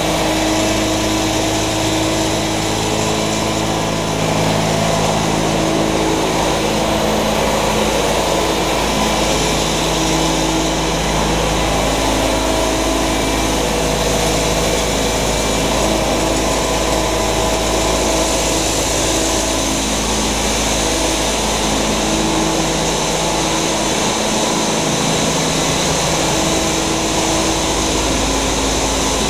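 Sawdust hammer crusher and airflow dryer line running: a steady, loud drone of electric motors and fans, with several steady hum tones over a constant rush of air and material.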